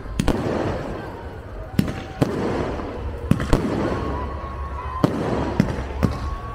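Fireworks display: sharp bangs of shells bursting overhead about every second, over a running crackle. A thin whistle sounds through the second half.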